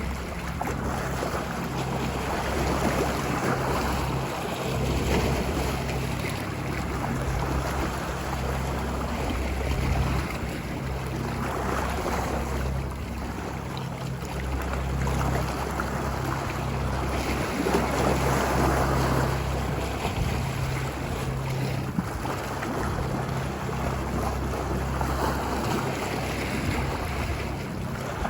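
Ocean surf washing ashore, a steady wash of water that swells and eases every few seconds, over a deep low rumble.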